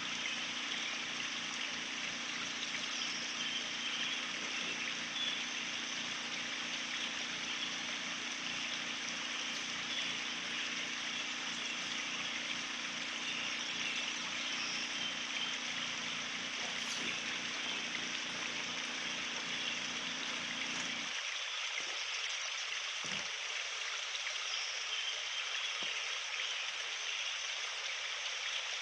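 Steady rushing of a flowing stream, with a low hum underneath that cuts off about three quarters of the way through.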